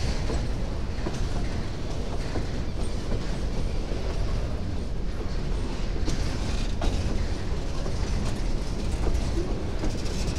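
Empty freight wagons, boxcars and hopper cars, rolling past at close range: a steady low rumble of steel wheels on the rails with scattered clicks and clanks from the cars.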